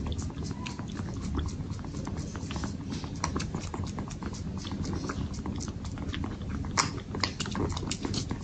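Kittens suckling milk from the silicone teats of a pacifier feeding bowl: quick, wet sucking clicks, several a second.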